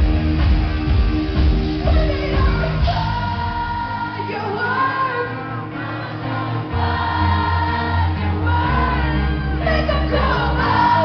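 Live pop song played over a PA, sung vocals over a band with drums and bass, heard from the crowd. The bass and drums drop out about a third of the way in and come back a few seconds later.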